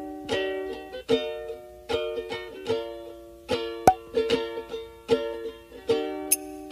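Background music: a plucked string instrument strumming chords at a steady, lively pace.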